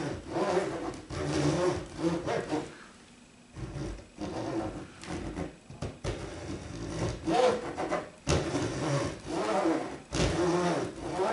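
Fret slot saw drawn back and forth across a guitar fingerboard, cutting a fret slot to depth: a run of rasping strokes with a short pause about three seconds in.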